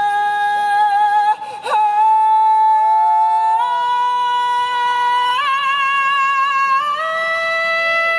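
Male vocalist singing long held high notes into a microphone, with no words. The pitch steps up about every two seconds, after a brief break about a second and a half in.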